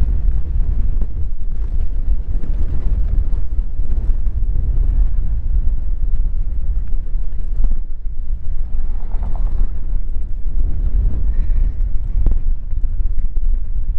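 Strong, gusty wind buffeting a GoPro action camera's microphone: a loud, low rumble that swells and drops with the gusts.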